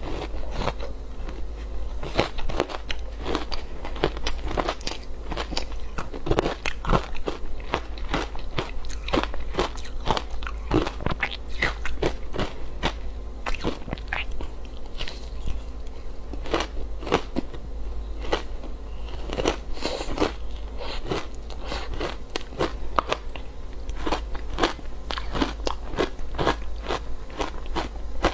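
Close-up crunching and chewing of powdery frozen matcha ice, a rapid run of crisp crackling bites and chews all the way through.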